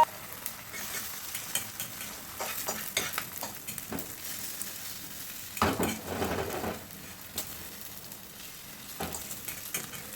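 Food sizzling in a frying pan, a steady hiss, with scattered scrapes and taps of a utensil stirring it; the stirring is loudest about six seconds in.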